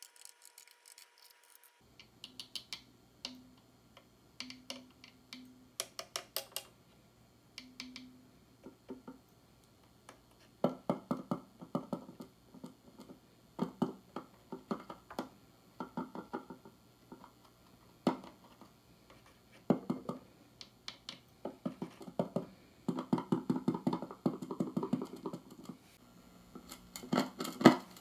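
Fender Twin Reverb amplifier's speaker reproducing taps of a plastic tweaker on its components and tube sockets: clusters of rapid crackling clicks over a low hum, which comes in about two seconds in, with the crackles getting louder from about ten seconds in. The noise is the sign of a microphonic 12AX7 preamp tube, a dirty socket, or both.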